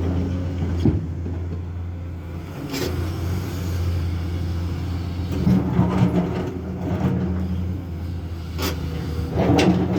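Komatsu hydraulic excavator's diesel engine running steadily with a low hum, rising in level a few times as it works, with occasional sharp knocks and clanks.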